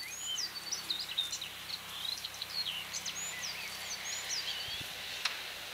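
Small songbirds singing, a run of quick high chirps and whistles over a steady outdoor hiss, fading out shortly before a single sharp click near the end.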